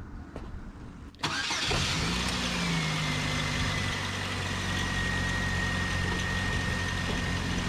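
2002 Chevrolet S-10 engine starting about a second in, revving briefly and then settling into a steady idle, with a thin high whine running steadily above it.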